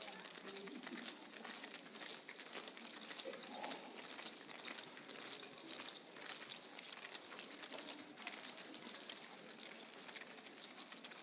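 Clogging shoes' metal taps clicking irregularly on a wooden stage floor as dancers move into place, a dense scatter of small clicks.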